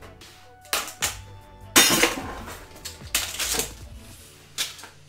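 Spoon scooping whipped topping out of a plastic tub into a Ninja blender jar: a few short scrapes and knocks, the longest and loudest about two seconds in.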